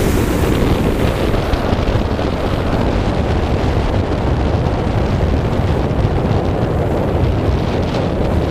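Wind buffeting the camera microphone on a boat under way: a steady, loud rumbling noise.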